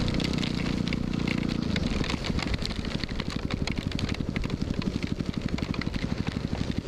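2010 Yamaha WR250R's single-cylinder engine running, then after about two seconds dropping to a rapid, even pulsing as it settles towards idle. Raindrops tick on the camera throughout.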